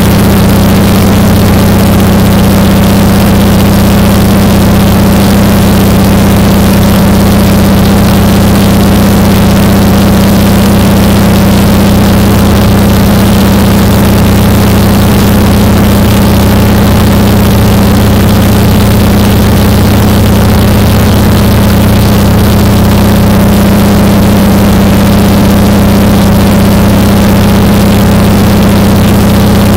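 Seaplane's engine and propeller droning steadily in flight, heard loud inside the cabin, with a strong low hum.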